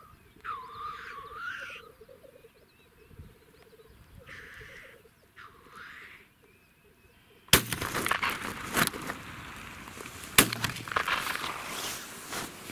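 Black grouse cocks on the lek give their low, rolling bubbling trill and hissing chuffs. About seven and a half seconds in, a shotgun fires, and a second shot follows about three seconds later: the first shot wounded a grouse and the second finished it as it tried to fly off.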